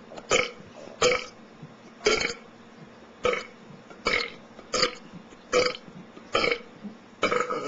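A man belching a long string of deliberate burps, about nine in a row, each one short, coming roughly once a second: forced burps built up from gulped carbonated soda.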